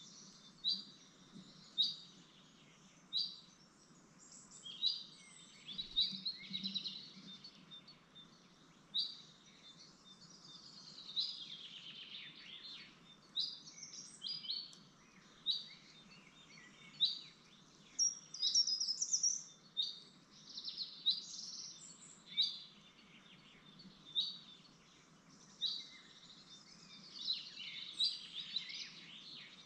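Blue tits chirping inside a nestbox: short high chirps about once a second, with denser runs of twittering a third of the way in, around the middle, and near the end.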